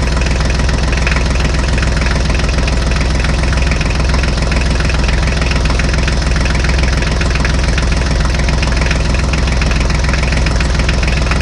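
Loud, steady tractor engine idling sound with an even knocking rhythm.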